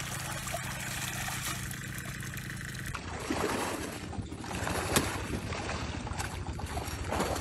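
A steady low hum and hiss for the first three seconds, then water sloshing and splashing in a shallow muddy creek, with a sharp splash about halfway through and another near the end.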